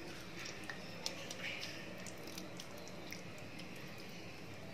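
Faint wet squelching of a hand squeezing buttermilk-marinated chicken pieces in a steel bowl, with scattered small wet clicks as the marinade is pressed out.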